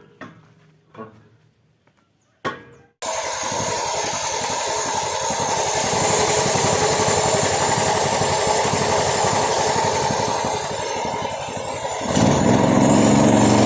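A few short knocks, then the 16 HP engine of a homemade band sawmill running steadily with rapid firing. It grows louder for the last second or so.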